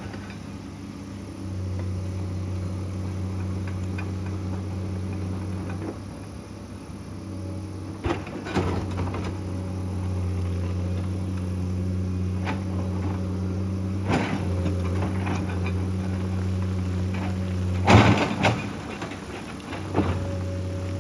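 Excavator diesel engine running steadily, its note easing and picking up, with knocks and clattering from the bucket working rock and earth, the loudest clatter about three-quarters of the way through.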